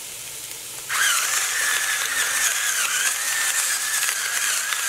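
Small electric pepper grinder switched on about a second in, its motor whining steadily over the crunch of grinding peppercorns. Beneath it in the first second, vegetables sizzle faintly in the pot.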